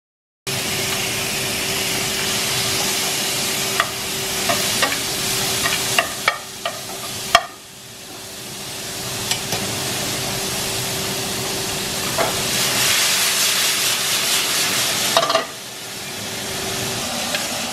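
Thin-sliced beef sizzling as it fries in a hot nonstick skillet, with a few sharp clicks of metal tongs. The sizzle dips after the loudest clack about seven seconds in, builds back, and drops again near the end.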